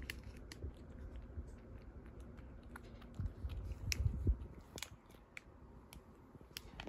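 A domestic cat chewing a snack, with many small sharp clicks of its teeth and a louder stretch of chewing about three to four and a half seconds in.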